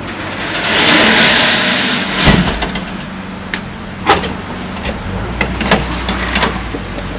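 Rear ramp door of an enclosed cargo trailer swinging up and shutting with a heavy thump about two seconds in, after a loud rush of noise, followed by several sharp metallic clicks and clanks as the door latch is worked.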